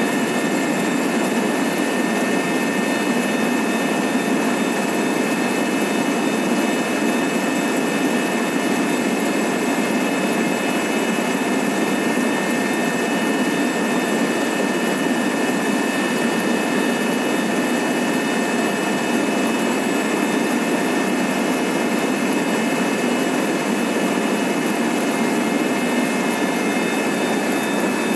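Steady in-flight cabin noise of a helicopter, heard from inside the cabin: a constant engine and airflow rush with a high, even turbine whine over it.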